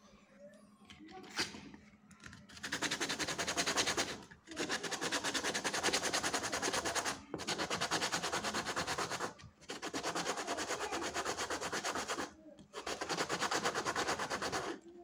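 A white PVC disc sanded by hand, rubbed face-down on a sheet of sandpaper. A dry, rasping scrape starts a few seconds in and comes in five spells of two to three seconds each, with brief pauses between.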